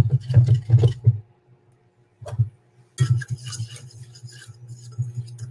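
A small stainless steel saucepan of roux knocking and clinking several times on a glass-top induction cooktop in the first second. From about three seconds in, a wire whisk scrapes and clinks steadily around the pan as the butter-and-flour roux is stirred while it cooks.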